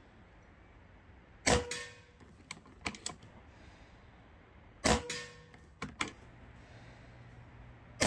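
Seneca Eagle Claw lever-action PCP air rifle firing two shots about three and a half seconds apart, each a sharp crack with a short ring. A second or so after each shot come a few lighter clicks of the lever being worked to load the next pellet. A third shot comes right at the end.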